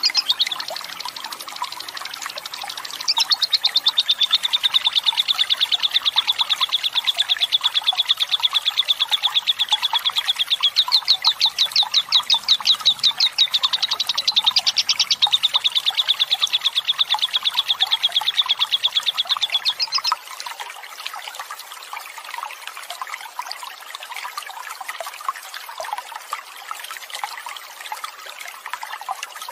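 Lovebird giving a long, very rapid chattering trill (ngekek panjang) over a steady sound of running water. The trill breaks briefly near the start and stops about two-thirds of the way through, leaving the trickling water.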